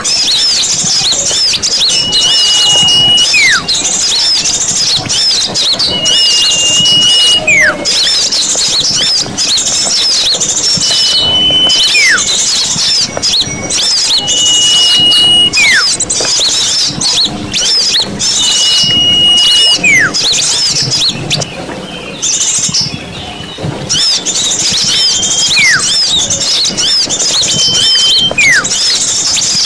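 Bird-lure recording of many small birds chattering and twittering densely. Through it, a call repeats about every four seconds: a steady high whistle held about a second, then a quick falling note.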